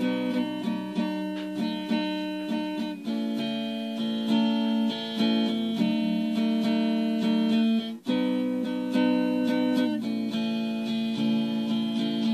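Guitar music with plucked notes, with a brief drop-out about eight seconds in.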